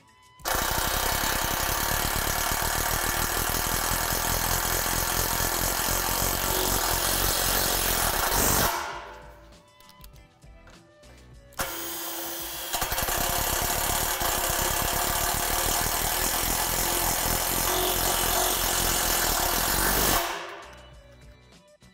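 A 12-volt cordless driver runs self-drilling screws through the overlapping square steel poles, the screws cutting into the metal of the pole beneath. It goes in two runs with a short pause between them: a rapid, loud clatter of about eight seconds each. The second run starts softer and gets louder about a second in.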